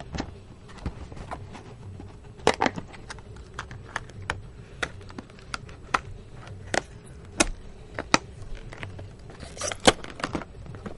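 Scattered light clicks and taps of hands handling a sealed cardboard box and its packaging, with a small cluster of knocks about two and a half seconds in and another near the end.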